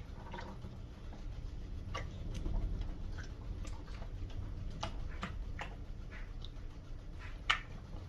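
A 4-month-old Cane Corso puppy's mouth and tongue making scattered wet clicks and smacks, about one a second, as she licks and cleans her mouth after drinking. The sharpest click comes near the end.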